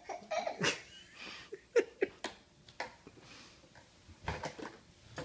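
Plastic toy kitchen being handled by a small child: irregular light clicks and knocks of plastic parts and toy utensils, with a cluster of them about four seconds in.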